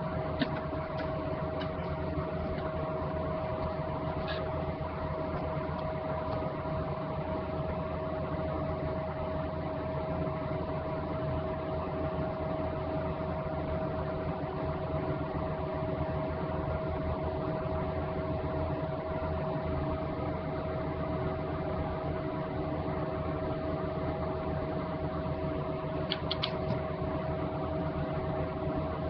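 Steady machine hum with one constant tone over a low hiss, with a few faint clicks near the start and near the end.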